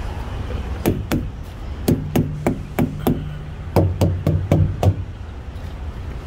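Semi-trailer dual tyres being thumped, a walk-around check that the tyres are not flat or low. About a dozen sharp knocks come in two quick runs, the first starting about a second in, each with a short low ring, over a steady low rumble.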